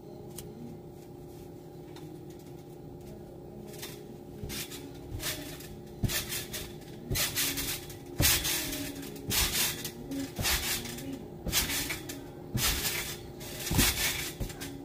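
Someone bouncing on a trampoline: a thump with a rustling rebound each time the feet land on the mat, about once a second. It starts about four seconds in and grows louder.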